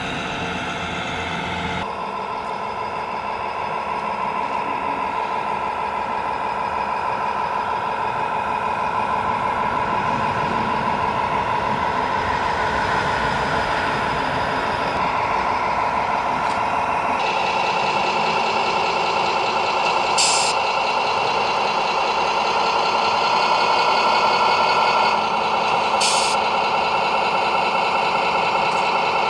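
Sound modules of scale RC trucks playing diesel truck engine running sounds through small speakers, changing pitch now and then, with two short hisses of air-brake sound later on.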